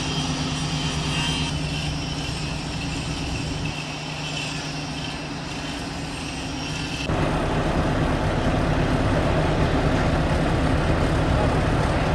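Steady engine noise of heavy machinery, with a low hum. About seven seconds in it switches abruptly to a louder, rougher engine noise.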